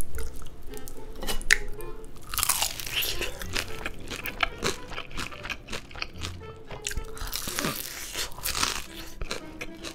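Crunching bites and chewing of crispy fried chicken drumsticks, with light background music underneath.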